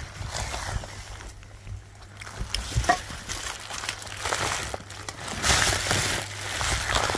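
A hand rubbing and sliding along an underwater pool liner, with water sloshing, heard as about five rough swishes over a steady low hum.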